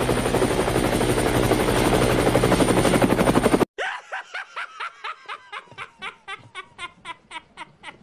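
Electronic sound effects: a rapid, dense rattle that builds in loudness and cuts off abruptly about halfway through, followed by a string of short pitched blips that come faster and faster while fading.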